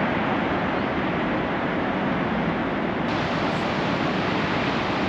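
Horseshoe Falls at Niagara: the steady, unbroken rush of a huge volume of falling water, with its hiss growing brighter about three seconds in.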